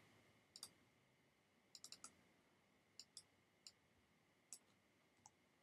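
Faint, scattered clicks of a computer keyboard and mouse over near-silent room tone, with a small cluster of keystrokes about two seconds in.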